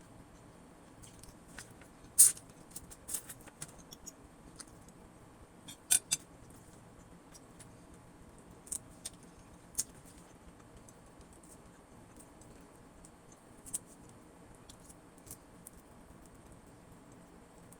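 Eating sounds: scattered sharp clicks and ticks, like utensils against a plate and mouth noises, the loudest about two seconds and six seconds in, over a faint steady background.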